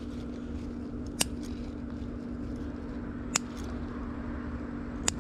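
Scissors snipping green bean pods off the vines: three short, sharp clicks about two seconds apart. A steady low hum runs underneath.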